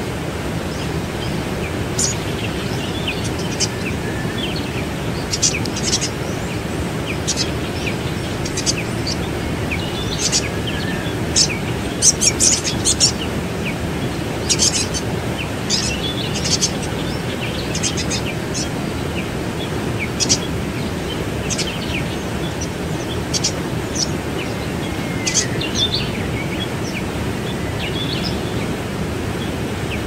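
Waterfall rushing steadily, with short, high bird chirps scattered over it, thickest around the middle.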